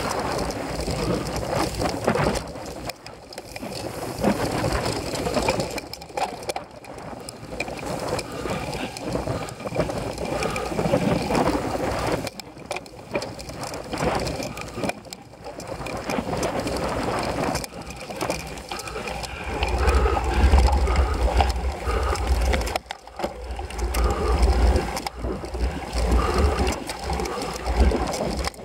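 Cyclocross bike ridden over bumpy grass and dirt: a rough rattle of tyres and drivetrain. A heavy low rumble sets in about two-thirds of the way through.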